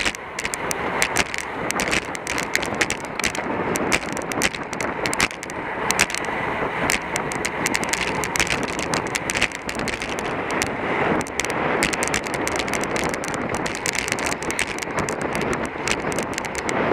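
Wind rushing over the microphone of a camera carried on a bicycle in a road race, with many sharp, irregular clicks and rattles throughout.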